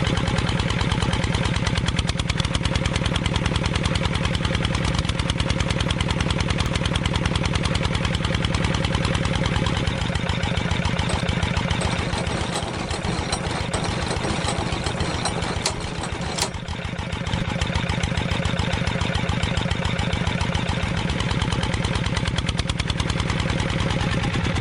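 Small engine of a homemade mini tractor drilling rig running steadily with a fast, even beat, easing slightly in the middle, with a couple of sharp clicks about two-thirds of the way through.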